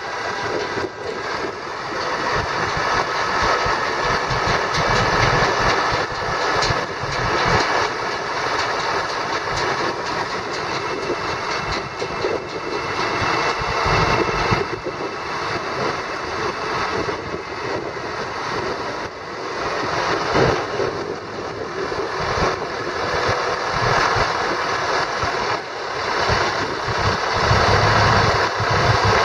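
International DT466 diesel engine of a dump truck running steadily while the hydraulic hoist raises the dump bed.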